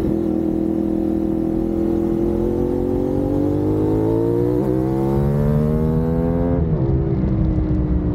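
CFMoto 450SS parallel-twin engine pulling through the gears. Its pitch climbs steadily for several seconds, then drops sharply at an upshift about six and a half seconds in. Wind rumbles on the microphone underneath.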